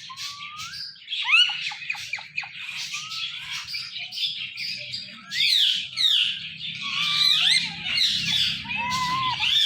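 Ringneck parrot squawking and chattering: a rapid run of quick rising and falling whistled calls, getting busier and louder in the second half.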